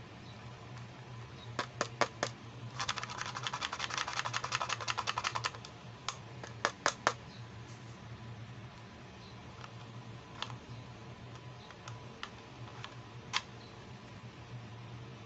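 Small hard-plastic toy makeup case being handled: sharp plastic clicks and taps, a few at first, then a fast rattling run of clicks for a couple of seconds, then scattered single clicks, over a low steady hum.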